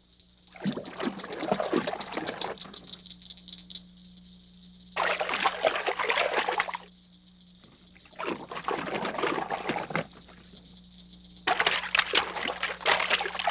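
Water splashing and rushing, heard in several separate stretches that start and stop abruptly, over a faint steady hum.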